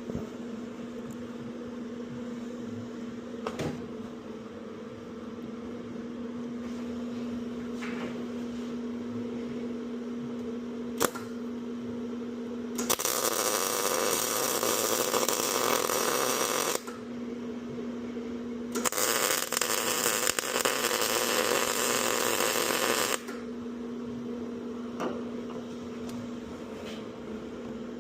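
A welder plug-welding holes in a car body panel: a steady hum with two bursts of arc crackle, each about four seconds long, the first about halfway through and the second soon after.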